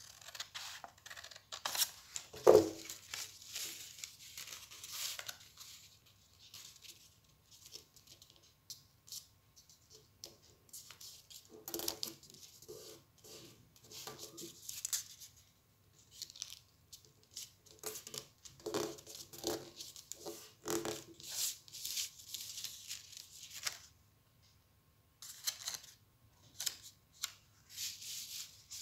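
Scissors cutting into a sheet of yellow craft paper, then the paper rustling and crinkling in short bursts as it is folded and creased by hand, with a sharp knock about two and a half seconds in.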